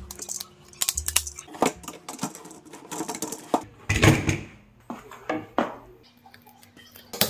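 Hands handling and fitting a hard plastic lantern-stand bracket on a plastic crate and plywood table top: a scatter of clicks, taps and knocks, the loudest about four seconds in.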